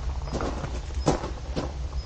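Footsteps, a few unhurried steps about half a second apart, over a steady low rumble.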